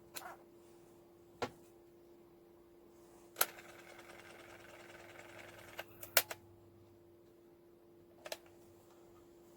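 Portable cassette player being operated: sharp key clicks, and a small tape-drive motor that runs for about two seconds before being clicked off.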